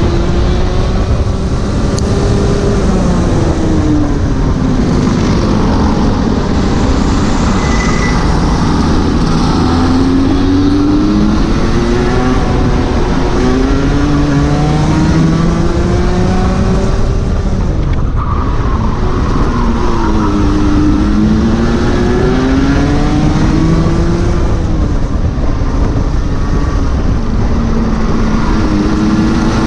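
Rotax 125 Junior Max Evo kart engine, a 125 cc single-cylinder two-stroke, at full throttle on a lap, its pitch climbing over a few seconds on each straight and dropping back as the throttle comes off for the corners, again and again.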